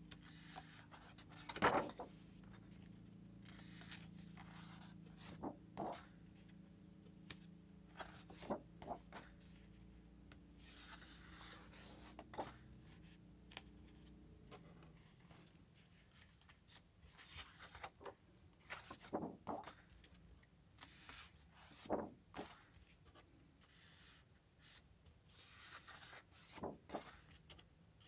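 Sheets of scrapbooking paper being handled and turned over in a paper pad: soft rustles, slides and taps of paper at irregular intervals, the sharpest snap about two seconds in. A faint low hum sits underneath and fades out about halfway.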